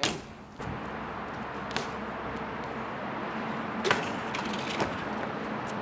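BMX bike rolling across pavement: a sharp knock at the start, then a steady rolling hiss from the tyres with a few light clicks.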